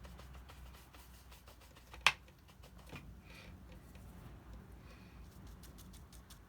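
Faint scratching and soft ticks of a paintbrush working watercolour on paper and palette, with one sharp click about two seconds in.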